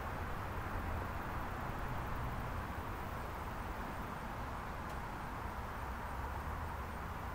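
Steady outdoor ambience: an even rushing hiss over a low, unsteady rumble, with no single event standing out.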